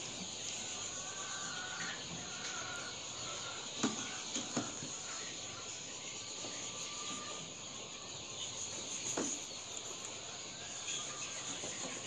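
Steady high-pitched insect chirring, with a few sharp clicks of eggs and egg trays being handled: two about four seconds in and one near nine seconds.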